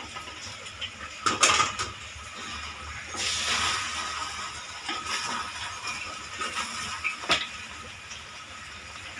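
Wooden spatula stirring and tossing fried potato wedges in a steel kadhai: scraping with scattered knocks against the pan, the loudest about a second and a half in and another near the end.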